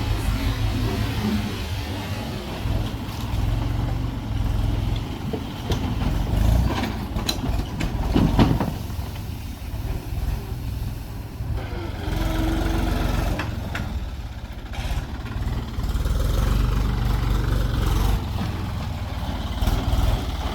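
Diesel engine of a working backhoe running under varying load, its low rumble swelling and easing, with a few sharp knocks near the middle.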